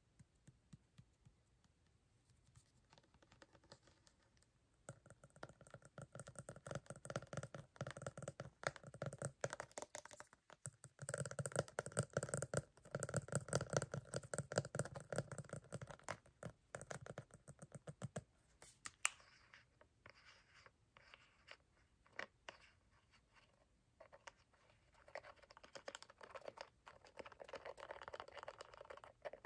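Fingernails tapping quickly on a plastic toner bottle and its flip-top cap, in dense flurries of clicks. The tapping thins to scattered single taps partway through, then picks up again near the end.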